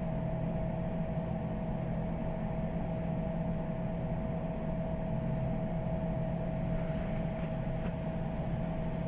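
Air handling unit's fan blower running steadily on its freshly replaced ball bearing: a constant hum with a steady whine over it.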